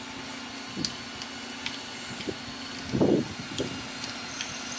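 Light metal clicks and taps of hand tools loosening a 10 mm bolt on the cylinder head of a Honda Z50R engine, with a duller thump about three seconds in, over a steady fan hum.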